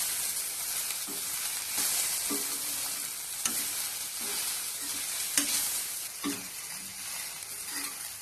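Bitter gourd slices and onions frying in oil in a pan over a low flame with a steady sizzle, while a utensil stirs them, scraping and tapping against the pan about once a second.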